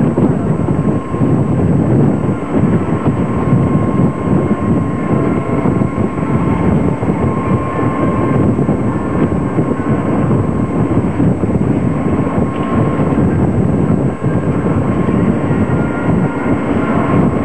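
Strong wind blowing across the microphone in a steady loud rush, mixed with water rushing past the hull of a sailboat in 4 to 6 foot seas.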